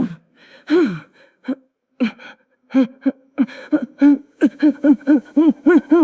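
Young woman's voice making non-word sounds: a few short gasps, then from about halfway a quick run of short pitched cries, each rising and falling, about three a second.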